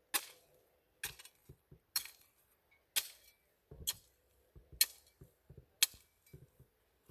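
Metal garden tool chopping into the dirt in a steady rhythm, a sharp clinking strike about once a second, seven strokes in all.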